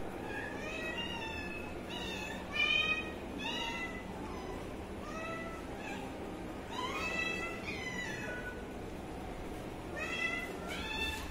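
Young cats meowing over and over, about a dozen high-pitched meows, some of them overlapping.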